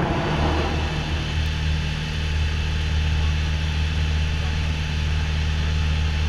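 Piper PA-28 Warrior's four-cylinder piston engine and propeller droning steadily in flight, heard inside the cabin, with a low steady hum under a broad rush of air and engine noise. The drone comes in just after the start and then holds even.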